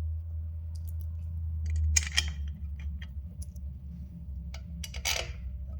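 Short metallic scrapes and clicks as intake bolts are set into the intake and threaded finger-tight by hand, the two loudest about two seconds in and near the end, over a steady low hum.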